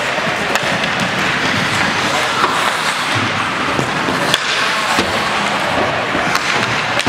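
Ice hockey game in a rink: a steady hiss of rink noise, with scattered sharp clacks of sticks, puck and boards, and spectators' voices mixed in.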